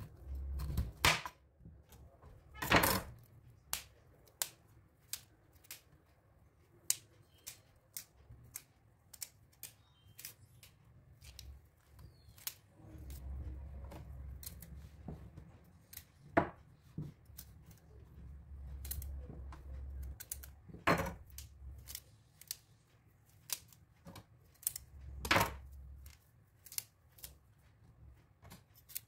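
Broccoli being cut and broken into florets on a bamboo cutting board: irregular sharp clicks and taps, with a few louder knocks now and then.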